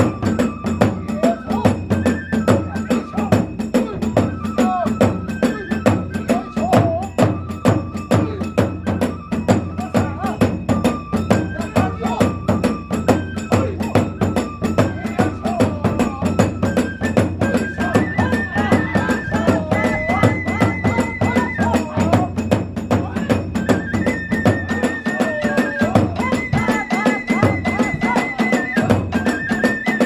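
Kagura festival ensemble playing: a bamboo flute melody in held, stepped notes over a fast, steady beat of drums and hand cymbals. The flute line moves higher a little past the middle.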